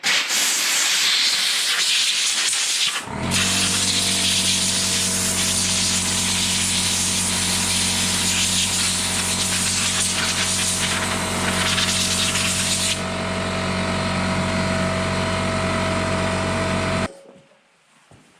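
A jet of air hissing steadily as it blows wet sawdust out of a Husqvarna 450 Rancher chainsaw's clutch and bar area. After a brief break about three seconds in, a steady machine hum with several tones runs under the hiss. Both stop suddenly near the end.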